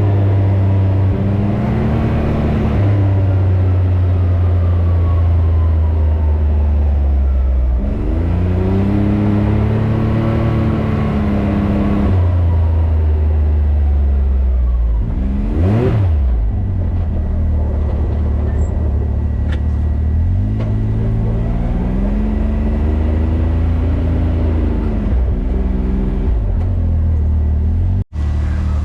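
A Can-Am Maverick X3 Turbo RR side-by-side's turbocharged three-cylinder engine running under way, its pitch rising and falling several times as the throttle comes on and off. The sound cuts out for an instant near the end.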